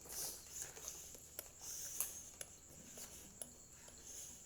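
Faint, scattered clicks and soft rustling from eating and handling snacks.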